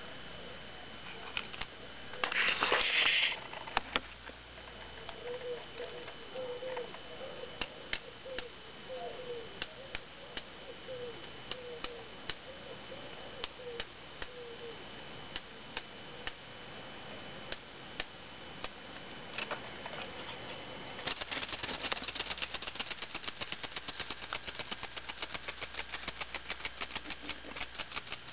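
Clockwork mechanism of an antique Lehmann tinplate crawling beetle toy: scattered clicks and a short rasp as it is handled and wound, then, about three-quarters of the way through, the spring motor runs with a fast, dense rattle of ticks.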